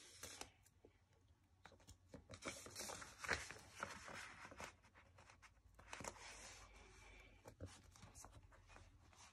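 Faint, scattered rustling and crackling of a paper sticker sheet as stickers are peeled off and pressed onto a magazine page.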